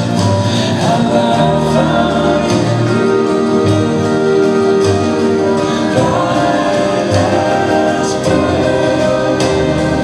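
Slow song with singing over sustained, slowly changing chords: the dance routine's music track.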